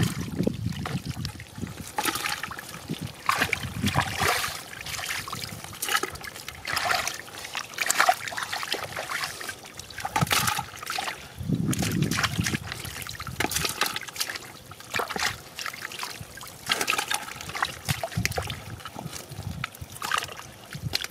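Shallow water splashing and trickling in quick, irregular splashes and drips.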